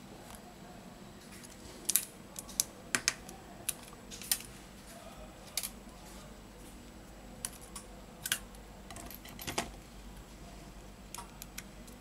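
Irregular light clicks and taps from handling an opened Samsung Galaxy A10: the display's flex-cable connector being unplugged and pressed back onto the board, and fingers and parts tapping, to test the touchscreen again after it did not respond. A cluster of sharper clicks falls about two to four and a half seconds in.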